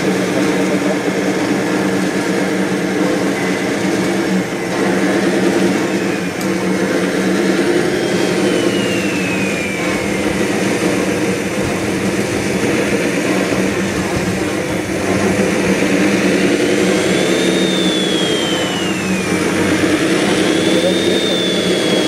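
Radio-controlled model wheel loader working: a steady engine-like hum with an electric motor whine that rises and falls in pitch about four times as the loader drives, lifts and tips its bucket.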